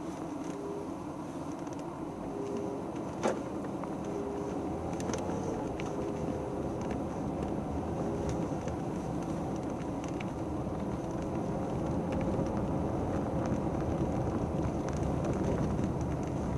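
Steady low rumbling noise that grows slightly louder, with a single sharp click about three seconds in.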